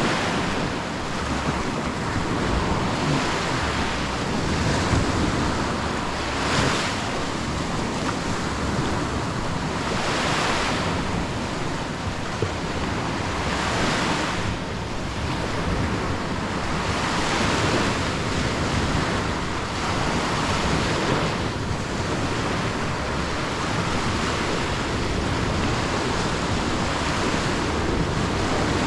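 Sea waves breaking and washing up on the beach, swelling every few seconds, with wind rumbling on the microphone.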